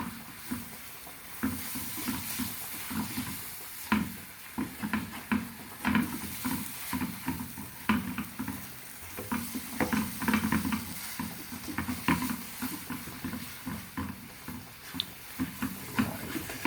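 A utensil stirring and scraping around a saucepan in quick, irregular strokes, working a thick sauce base with butter melting into it, over a light sizzle from the hot pan.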